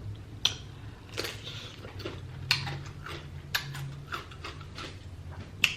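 Close-miked eating sounds during a seafood boil: scattered sharp clicks and smacks, roughly one or two a second, over a low steady hum.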